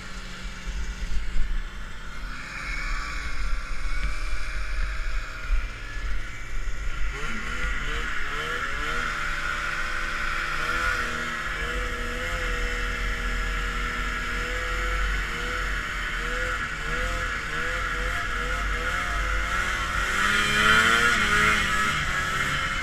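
Vintage Ski-Doo snowmobile two-stroke engine running while riding. Its pitch climbs about seven seconds in as it speeds up, then wavers up and down with the throttle.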